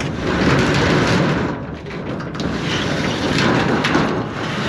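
A storage unit's metal door being thrown open, a continuous rattle lasting several seconds.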